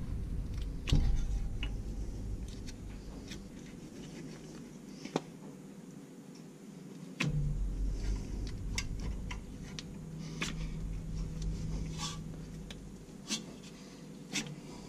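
Scattered light metallic clicks and rubbing as a rear disc-brake caliper and its slide pin are handled and fitted by hand.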